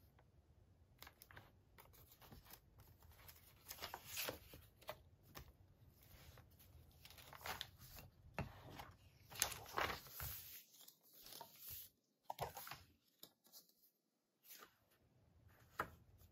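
Paper handling: the stiff pages of a handmade junk journal rustling and crinkling as they are pressed and turned, in short scattered bursts with brief silent gaps.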